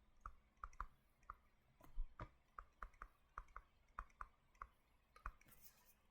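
Faint, irregular clicks of a pen tip tapping and catching on the writing surface as words are handwritten, a few clicks a second, with a brief soft rustle near the end.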